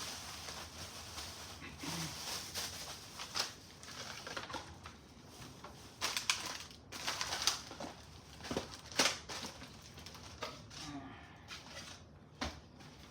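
Things on a cluttered kitchen table being picked up, moved and set down: scattered knocks and clicks with light rustling, the sharpest knocks a little past halfway and near the end.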